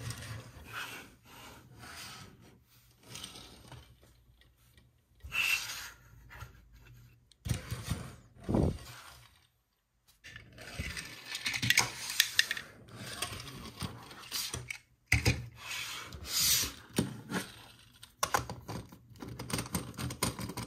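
Toys and their packaging handled up close: irregular rubbing, scraping and clicking, with a short break a little before ten seconds in and denser, louder clicks after it.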